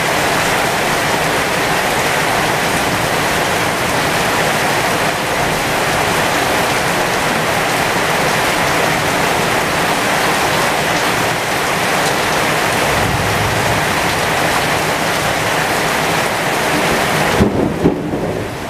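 Heavy thunderstorm rain pouring steadily onto the leaves of a pomegranate tree, with a low rumble of thunder about two-thirds of the way through. Near the end the rain hiss drops away and a couple of low thumps sound.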